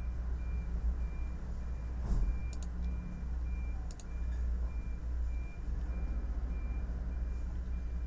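A vehicle's reversing beeper sounding a steady high beep about twice a second over the low rumble of an idling truck engine. There are two quick pairs of sharp keyboard key clicks.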